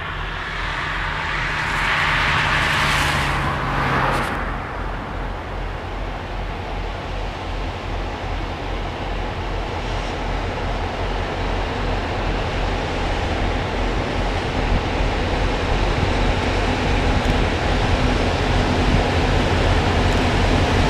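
Two HŽ 2062-series diesel locomotives (EMD-built, two-stroke V16 engines) hauling a freight train slowly, their low engine throb growing steadily louder as they approach. A rushing hiss swells and dies away in the first four seconds.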